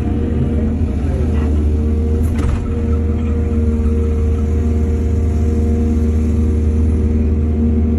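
Excavator's diesel engine running steadily with a deep, even drone and a steady higher hum, the pitch dipping briefly about a second in.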